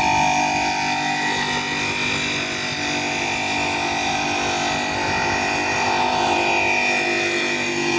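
An engine running steadily, with a constant whine held on a few steady pitches over a low rumble.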